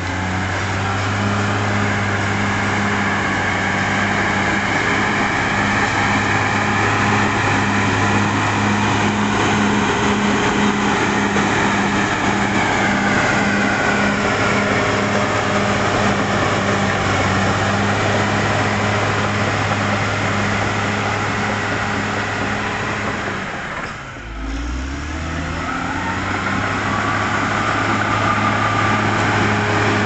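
CAT D6R XL bulldozer's diesel engine running steadily under load as it pushes earth. About 24 seconds in the engine note drops away briefly, then builds back up.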